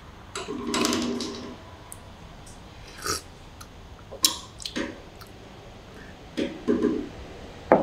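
Someone tasting coffee from a small glass cup: mouth sounds of sipping and slurping, with light knocks of the glass on a wooden table. A longer slurp comes about half a second in, then several short sounds spread through the rest.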